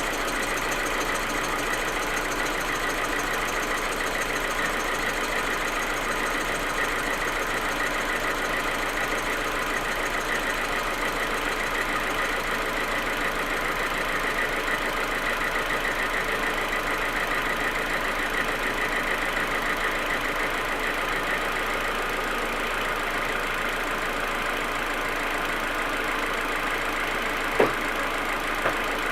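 Audi A4 1.8T turbocharged four-cylinder engine idling steadily, the idle its owner describes as rough and misfiring when the engine is cold. A single short sharp click about 27 seconds in.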